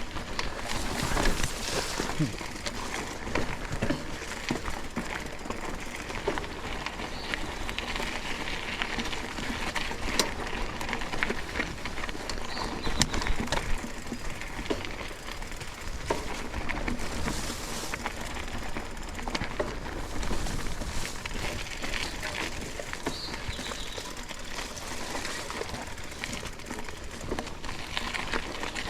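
Outdoor ambience of steady rustling, crunching noise with scattered small clicks, and a few faint bird calls.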